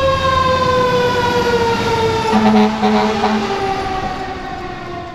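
Fire engine siren wailing, its pitch slowly falling after a climb, with a low horn blast for about a second about two seconds in; the siren grows fainter near the end.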